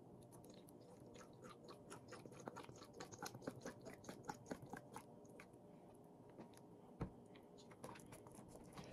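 Italian salad dressing pouring from an upturned plastic squeeze bottle into a plastic measuring cup: a quiet run of quick crackling clicks and glugs. About seven seconds in comes a single thump as the bottle is set down on the stone counter.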